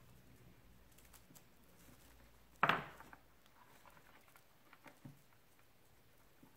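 Faint rustling and small crackles of dry twigs and wire-cored raffia being wrapped and twisted by hand, with one short, louder bump about two and a half seconds in.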